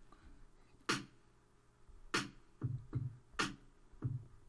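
Programmed drum beat from the Redrum drum machine in Propellerhead Record: a sharp snare hit about every second and a quarter, with kick drums coming in about two and a half seconds in.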